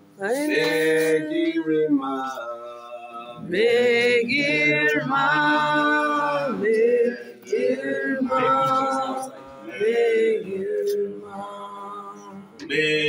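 Men singing a worship song together in phrases of long held notes.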